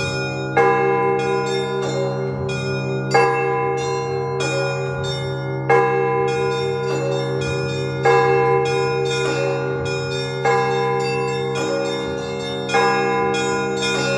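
Russian Orthodox church bells rung together to call to the service. A heavy bell strikes about every two and a half seconds, the loudest sound each time, over quick repeated strokes on the smaller bells and a steady low hum from the bells still ringing.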